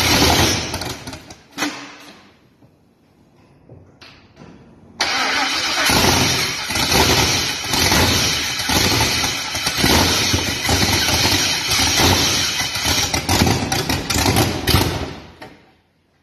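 6.0-litre LS V8 swapped into a BMW 335i, with open exhaust manifolds and no exhaust fitted, fired up on its first starts. It runs briefly and dies away within about two seconds, catches again about five seconds in and runs loudly for about ten seconds, then stops near the end.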